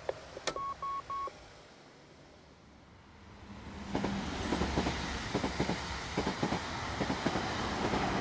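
A phone call ends with a click and three short, identical beeps. After a moment of quiet, a train sound fades in: a steady rumble with irregular clattering.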